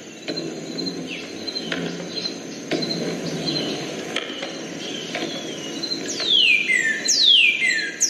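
Northern cardinal singing: two loud whistles near the end, each sweeping steeply from high to low, over faint short chirps from other birds and a steady low background noise.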